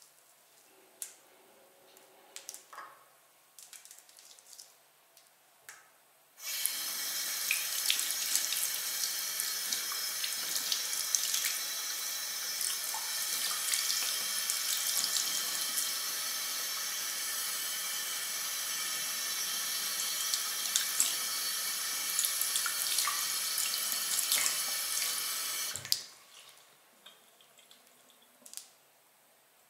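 Bathroom washbasin tap turned on about six seconds in, water running steadily onto hands and splashing into the basin, then shut off sharply near the end. Before and after, only faint small clicks.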